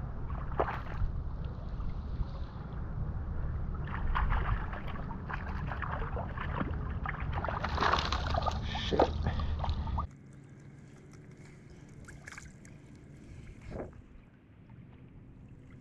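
A hooked Pacific porgy (mojarra) splashing and thrashing at the water's surface as it is reeled in, over a steady low rumble of wind on the microphone. The splashing comes in two spells, the louder near the middle. About ten seconds in, the rumble cuts off suddenly and it goes quieter, with a few faint clicks.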